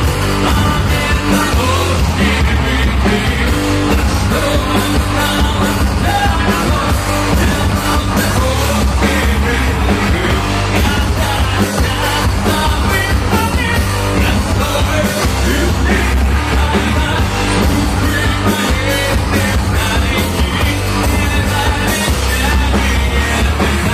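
Metal band playing live at full volume, with a singer's sung and yelled vocals over dense, driving drums and guitars.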